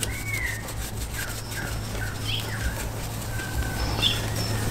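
Small birds chirping and whistling in the background, a string of short calls throughout, over a steady low hum.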